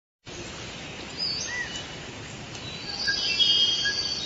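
Birds chirping and whistling, with short rising and falling calls over a steady outdoor noise background. There is a busier burst of calls from about three seconds in.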